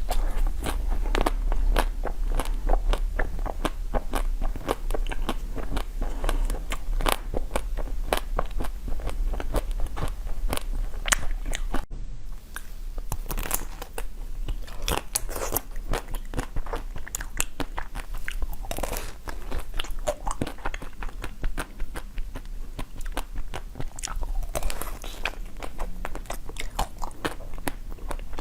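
Close-up mukbang eating sounds: crunchy food being bitten and chewed in dense, irregular crackling crunches, over a steady low hum.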